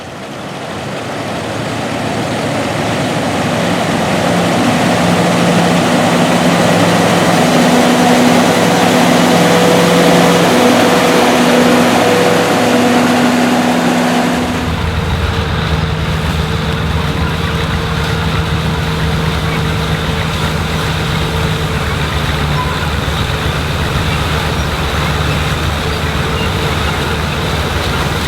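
Classic combine harvesters running in a corn field: steady engine and machinery sound, growing louder over the first few seconds. About halfway through it changes abruptly to another combine's steady running.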